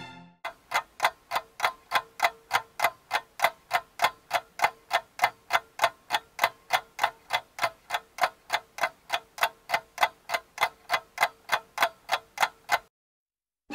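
Regular, even ticking, about three ticks a second, over a faint steady tone. It cuts off abruptly near the end.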